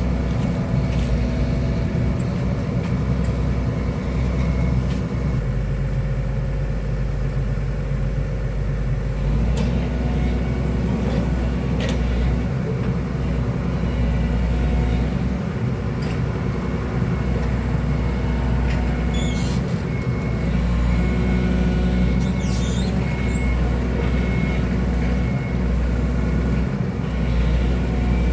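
Excavator diesel engine running steadily under changing load as the machine works, its note shifting several times. A few brief high squeaks come about two-thirds of the way through.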